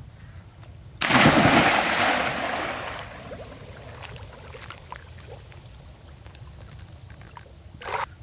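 A person jumping into the water: one loud splash about a second in, then the water churning and settling over the next couple of seconds. A brief sharp sound near the end.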